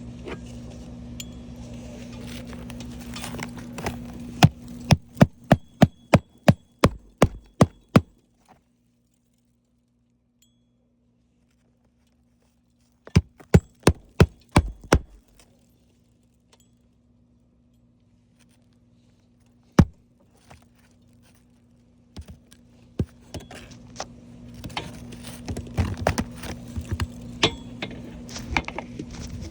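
Hammer driving nails into a new roof shingle: two runs of quick, sharp strikes a few seconds apart, then a single strike, over a steady low hum. Scuffing and scattered knocks follow near the end.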